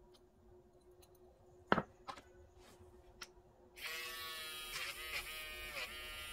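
A sharp knock and a few light clicks, then about four seconds in a pen-style cordless electric nail drill with a sanding-band bit switches on and runs with a steady high whine, dipping briefly in pitch twice.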